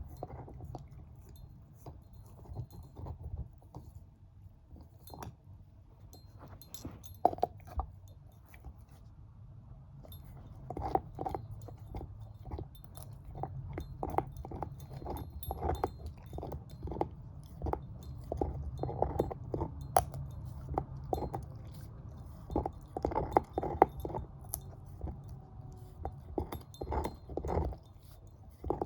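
Shepherd-mix dog chewing on a bone: irregular crunches and clicks of teeth on bone. They are sparse at first, then come faster and louder from about ten seconds in.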